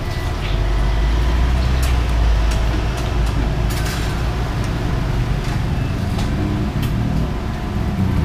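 Low engine rumble of a heavy road vehicle going by on the street, loudest in the first few seconds and then easing, over steady traffic noise. A few light clicks, like a spoon and fork on a plate, are heard now and then.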